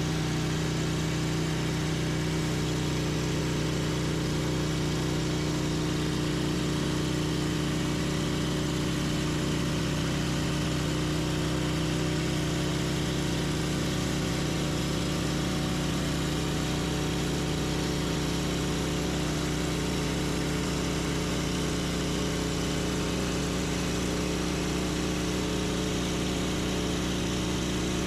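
An engine running steadily at an even speed, its pitch rising slightly about halfway through.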